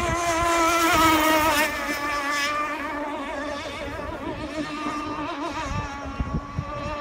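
Radio-controlled speedboat running flat out across a lake: a high motor whine with a wavering pitch, loudest about a second in, then steadier and a little fainter.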